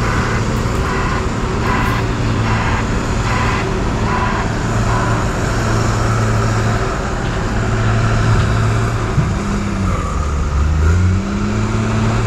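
Diesel engines of earthmoving machinery (excavators and articulated dump trucks) running steadily with a deep hum. A rhythmic pulsing sound repeats through the first few seconds, and near the end an engine's pitch drops and climbs again as it revs.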